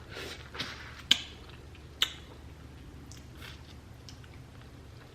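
Person eating seafood close to the microphone: soft chewing with a few sharp clicks, two louder ones about one and two seconds in.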